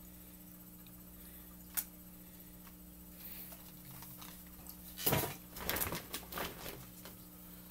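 Rustling and handling noises as purchases are rummaged out of a shopping bag: a single click about two seconds in, then a cluster of crinkling and knocking between about five and seven seconds. A faint steady hum runs underneath.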